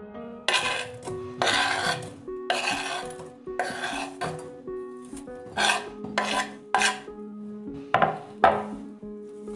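A kitchen knife scraping across a wooden chopping board, sweeping chopped green onions off it, in a series of rasping strokes. There are about four longer strokes in the first half, then several shorter, sharper ones.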